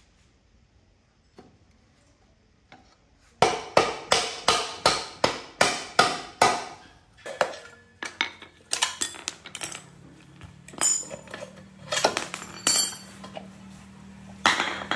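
Sharp metal-on-metal hammer strikes on the rusty rear axle of a motorcycle, about nine blows at roughly three a second, followed by scattered metal clinks and knocks as the rear wheel is worked free.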